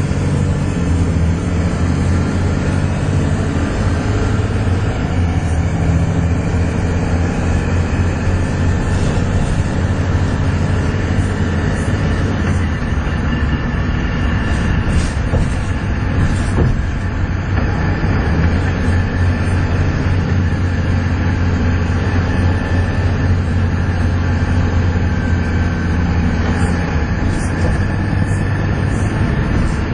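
Volvo B7TL double-decker bus engine running steadily under hard load, with the whining 'hoover' noise that these buses make when worked hard.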